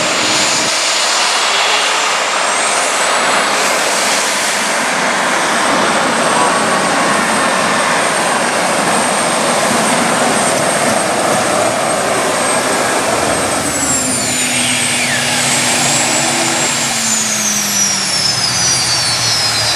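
A 7,500 lb modified pulling tractor runs at full power for a pull down the track. About two-thirds of the way through, the power is cut and the engine winds down with a falling whine.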